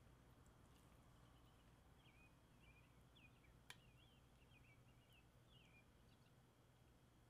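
Near silence, with faint bird chirps in the background, short high calls that slide up and down, and one light click about three and a half seconds in.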